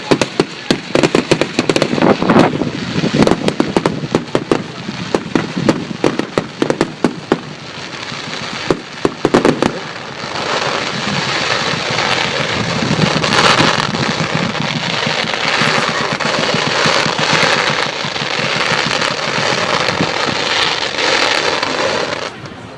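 Fireworks going off in a display: a rapid string of sharp bangs for about the first ten seconds, then a dense continuous rush of noise that drops away near the end.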